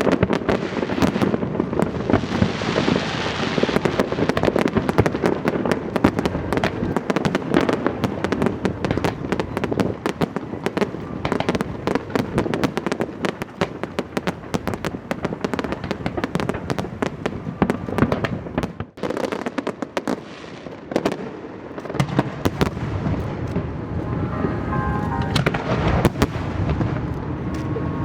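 Aerial fireworks display: a dense, continuous stream of bangs and crackling bursts, easing briefly about two-thirds of the way through before picking up again.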